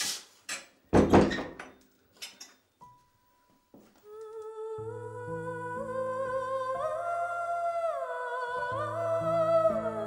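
A loud thump about a second in, after some rustling, then a brief hush. From about four seconds in, a slow film-score piece: a wavering melody that glides between notes, over held low notes that change in steps.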